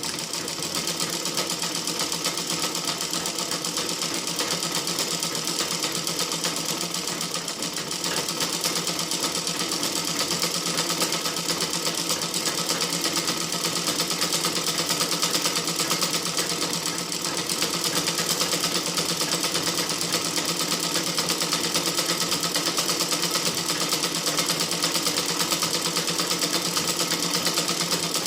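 Sewing machine starting up and then running steadily at speed, a rapid, even stitching clatter.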